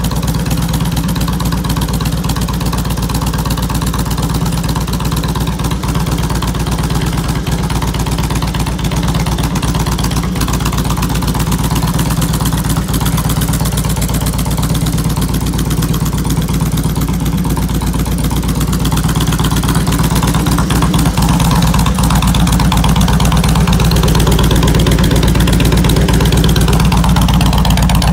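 2003 Harley-Davidson Heritage Classic Softail's Twin Cam 88B V-twin idling steadily, getting a little louder about two-thirds of the way through as the exhaust pipes come closer.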